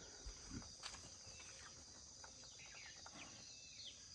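Faint rural ambience: a steady high insect drone with a few short, falling bird chirps.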